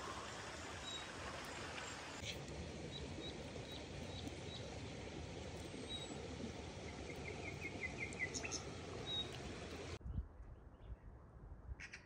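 Outdoor ambience: a steady background hiss with birds chirping now and then, and a quick run of chirps about seven seconds in. The ambience cuts off abruptly about ten seconds in, leaving a quieter stretch with a few faint clicks.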